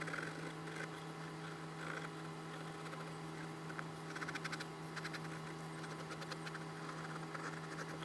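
Pencil scratching on sketchbook paper in short repeated shading strokes, faint, over a steady low hum.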